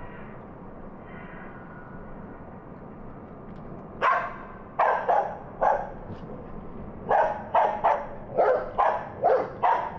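Dog barking: a few barks starting about four seconds in, a short pause, then a quicker run of barks to the end.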